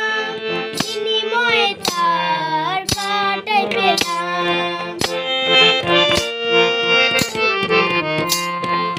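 Harmonium playing sustained chords, with a child singing and a sharp percussive beat about once a second.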